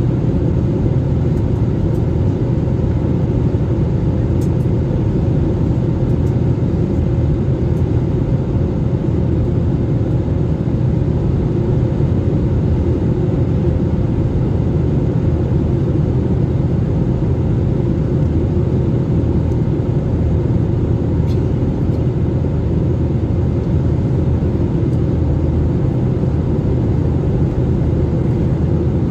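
Passenger airliner cabin noise: a steady low rumble of engines and airflow, unchanging throughout.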